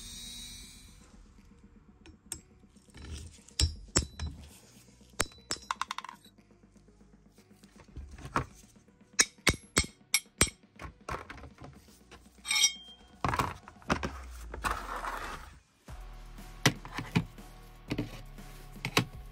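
Rusty steel pipe-wrench parts clinking and knocking as the wrench is taken apart and its pieces set down: a run of sharp metal clinks and taps, some ringing briefly. A small rotary tool winds down in the first second.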